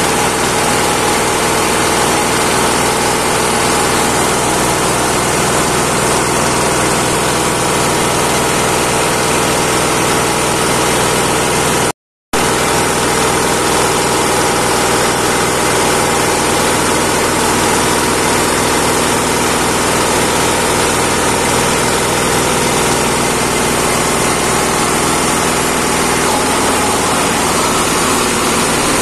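A small engine drives a hammer mill that runs steadily under load, grinding rice husks into fine feed bran. A loud, even mechanical din with a steady hum, cut off for an instant about twelve seconds in.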